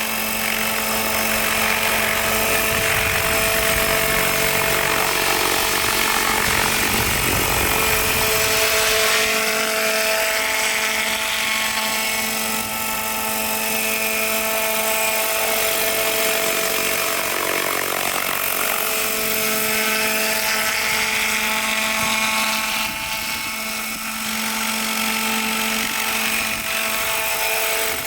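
Radio-controlled scale model Bell UH-1H helicopter running, with a steady whine of several pitched tones over a hiss. The pitch shifts slightly at times.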